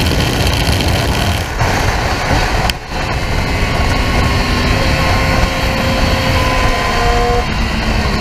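Onboard sound of a Triumph Street Triple R's three-cylinder engine running at speed, mixed with heavy wind rush on the microphone. A brief dip in level comes nearly three seconds in.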